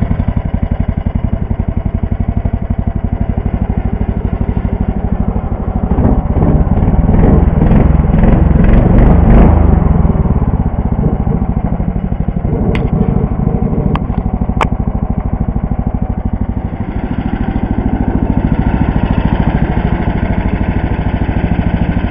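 Leader 3N motor tow's small single-cylinder engine running, pulling harder and louder for a few seconds as it drives through the snow, then settling back to a steady idle. A few sharp clicks come in the middle.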